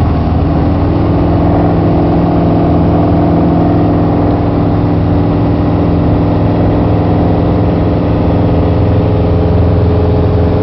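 Piper PA-28-140's four-cylinder piston engine and propeller running in flight, heard from inside the cabin as a loud, steady drone with many even tones.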